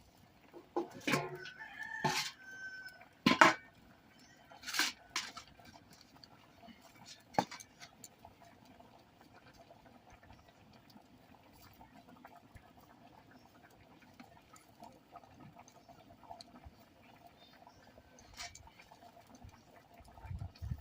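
A rooster crowing and chickens clucking, a handful of short calls in the first five seconds or so, then only faint background sound.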